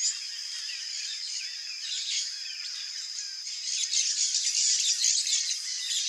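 Many small birds chirping and squeaking over a steady, high-pitched insect trill. The calling grows busier and louder about four seconds in.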